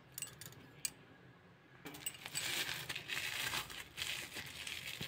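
Dense crackling and crinkling as something is crumbled by hand over a pan of poha, starting about two seconds in, after a few light clicks.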